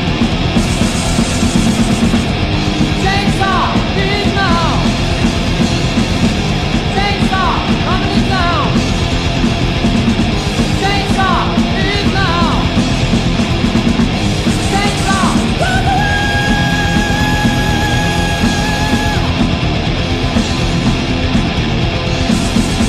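Mid-1980s heavy metal song on electric guitars, with short high falling swoops several times and a long held high note about two-thirds of the way in.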